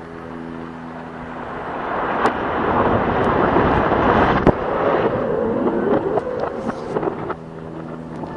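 Rumble of an industrial chimney's demolition blast and collapse heard from a distance: a rushing noise that swells over a few seconds, with a couple of sharp cracks, then eases off as the chimney begins to topple.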